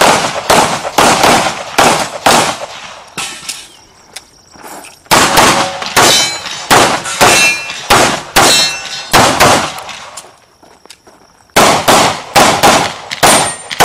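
Handgun fire: strings of rapid pistol shots, about two a second, in three runs separated by pauses of a couple of seconds as the shooter moves between firing positions.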